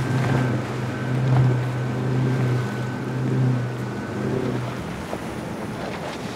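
Yellowfin 26 Hybrid center-console boat's outboard engines running steadily at speed, with wind and water rushing. The engine hum cuts off about five seconds in, leaving only the wind and water noise.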